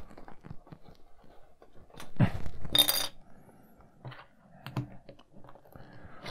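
Small plastic clicks and taps as a 3.75-inch plastic action figure is handled and its feet are pressed onto a clear plastic display stand on a wooden tabletop. There is a brief brighter clatter about three seconds in.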